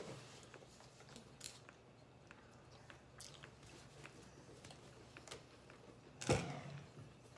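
Scattered small clicks and crunches of someone eating, with one louder thump about six seconds in.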